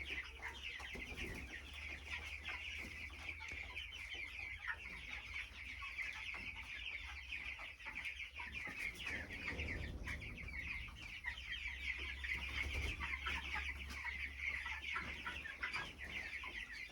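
A large flock of broiler chickens calling continuously, a dense chorus of many overlapping high peeps, over a low steady hum.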